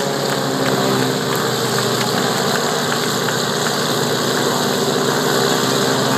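Single-engine aerobatic plane's piston engine and propeller running steadily at low taxiing power.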